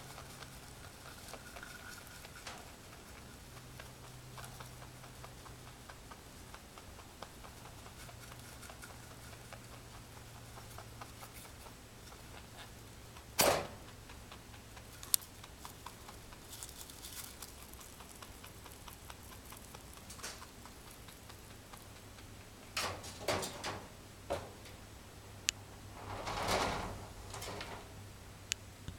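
Pet rabbit sneezing, apparently from hay dust in its nose: one loud, short, sharp sneeze about halfway through, then a few shorter sharp sounds and a longer one near the end. Faint rustling and scratching between them.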